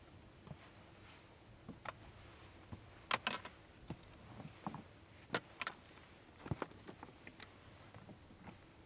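Scattered, irregular small clicks and knocks, with the sharpest ones about three seconds in and again about five seconds in.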